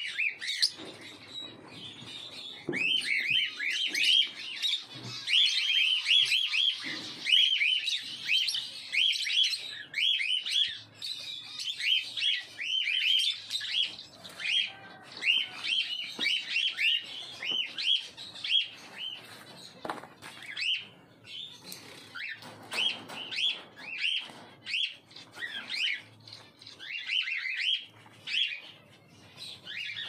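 A flock of peach-faced lovebirds chirping, a constant stream of short, sharp high chirps several a second, with scattered light clicks and knocks in between.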